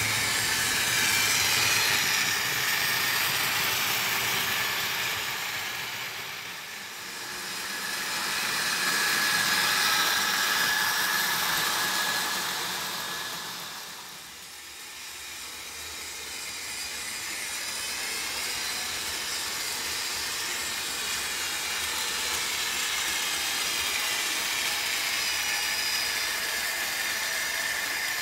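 Märklin HO model trains running on metal track: a rushing, mostly high-pitched noise of wheels and motors with a faint steady whine. It swells and fades twice as trains pass close by, then holds steady.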